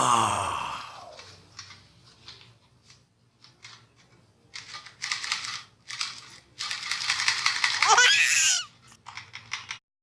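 A child's laugh sound effect that trails off about a second in, followed by scattered clicks and two longer bursts of rattling noise.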